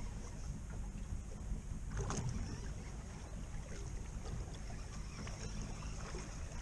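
Small fishing boat's engine idling, a low steady rumble, with one brief knock about two seconds in.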